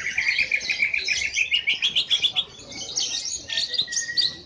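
Caged green leafbirds (cucak ijo) singing: a fast run of sharp repeated chirps, about seven a second, then after a short break a more varied phrase with a held whistled note near the end.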